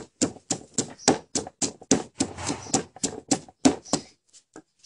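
Wooden pestle pounding chillies and garlic in a clay mortar, crushing them to a paste, at about four to five strikes a second; the pounding stops about four seconds in.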